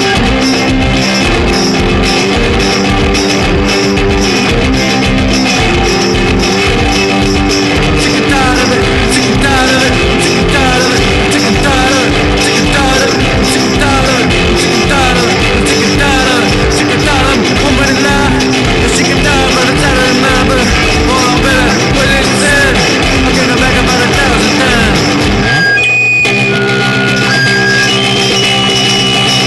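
Garage punk rock song with a fast, steady drum beat and distorted guitars, with wavering, gliding lead lines through the middle. About 26 s in the music breaks for an instant, and the low beat drops out while high notes carry on.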